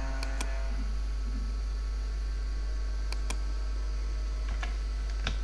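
Steady low electrical hum with a few computer mouse clicks over it: two near the start, a quick pair about three seconds in, and two more near the end.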